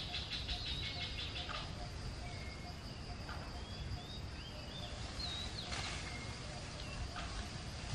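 Steady high-pitched insect drone with scattered short rising and falling chirps. A fast pulsing trill runs through about the first second and a half, and a few brief rustling crackles come through, one near the middle.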